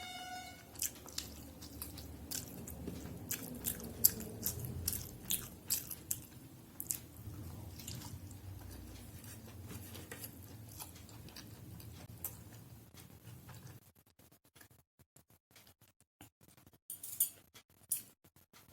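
A person chewing a meal, with frequent sharp wet mouth clicks and smacks. It stops abruptly about fourteen seconds in, leaving only a few faint clicks.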